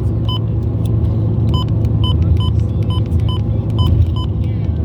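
A run of short, high electronic beeps, about three a second, starting about a second and a half in after a single beep near the start, over a steady low rumble.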